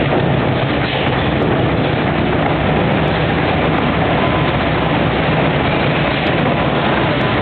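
Large stationary natural gas engine running steadily, its big flywheel turning, with a continuous mechanical clatter over a low hum.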